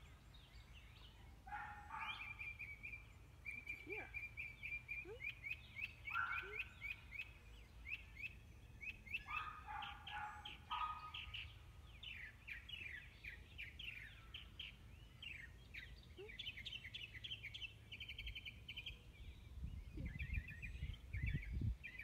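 Wild birds singing and chirping, with repeated rapid trills and shorter lower-pitched calls. A low rumble comes in near the end.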